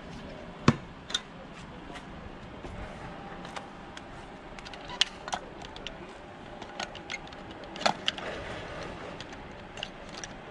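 Scattered sharp clicks and knocks of a heavy multi-pin electrical plug and its cable being handled and fitted to its socket on a telehandler's boom arm. The loudest click comes just under a second in, and another comes near eight seconds.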